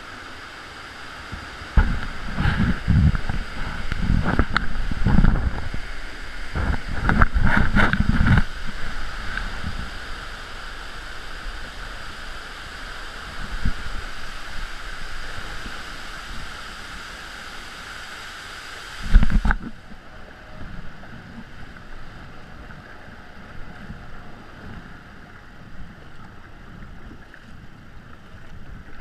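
Seawater splashing and sloshing around a tandem sea kayak being paddled through a sea cave, with a run of heavy, irregular splashes and thumps over the first several seconds. After a sudden change about two-thirds through, a quieter, steady wash of open-ocean water around the kayak.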